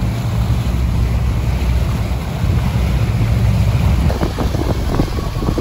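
Suzuki 200 outboard motor running steadily under way, with wind buffeting the microphone and water rushing past the stern. A few short knocks come in the second half.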